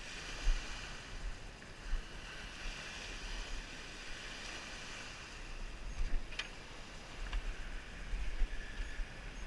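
Small lake waves washing steadily onto a stony shore, a steady hiss, with wind gusting on the microphone in low rumbles. A few short knocks, about half a second in, just before 2 s and around 6 s.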